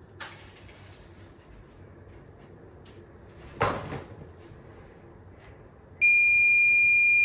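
A click about halfway through, then the buzzer of a homemade LDR touchless doorbell starts suddenly about six seconds in and holds one loud, steady high tone. It is set off by the light sensor going dark as the room light is turned off.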